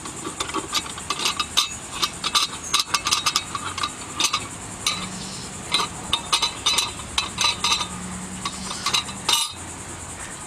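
Rapid, irregular metallic clicks, clinks and rattles as the spare tire's hold-down is undone in the trunk and the tire is freed.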